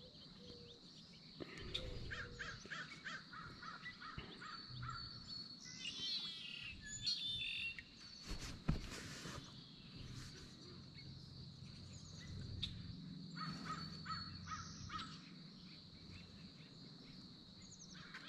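Birds calling: a run of about eight short, evenly repeated calls starting about two seconds in, higher chirps around six to seven seconds, and another run of calls around thirteen seconds, over a steady high-pitched buzz. A single sharp click comes just before nine seconds.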